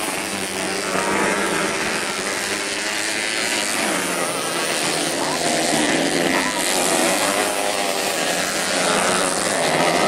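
Several racing dirt-bike engines running at high revs together, their pitch wavering up and down as the riders work the throttle through the corners.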